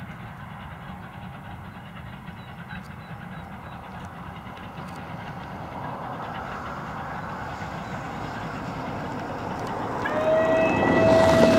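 Steam locomotive hauling a train of coaches approaches, its running noise growing steadily louder. Near the end it sounds its steam whistle in one long, steady blast.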